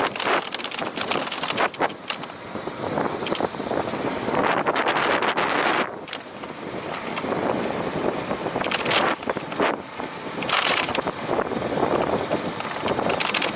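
Wind rushing over the microphone of a moving bicycle, rising and falling in gusts.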